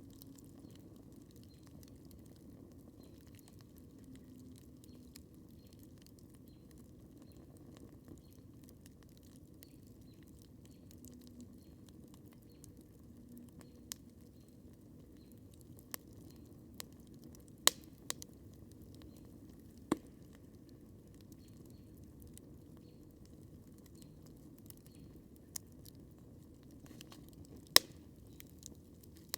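Wood campfire crackling: a steady low rumble of burning with fine scattered ticks and a few sharp pops, the loudest two about a third of the way in and near the end.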